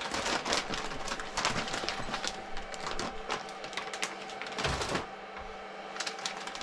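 Plastic packaging crinkling and rustling as it is handled and pulled open, in dense irregular crackles that ease off about five seconds in and pick up again near the end.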